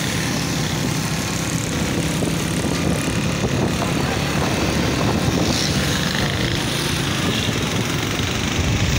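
Motorcycle engine running steadily while riding, with road noise around it.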